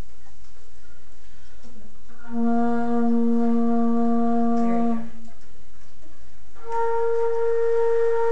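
Flute choir, including a bass flute, playing long held notes: a low note sounds about two seconds in and is held for about three seconds, then after a short break a note about an octave higher is held near the end.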